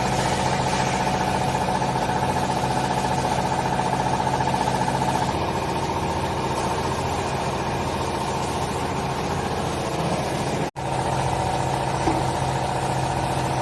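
Hydraulic baler running: a steady motor hum with a higher pump whine. About eleven seconds in, the sound drops out for an instant and then resumes.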